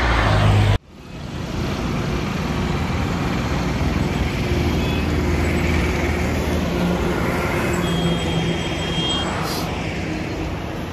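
Steady highway traffic noise: cars and trucks running and passing, with a low engine hum. A louder stretch at the start cuts off abruptly under a second in.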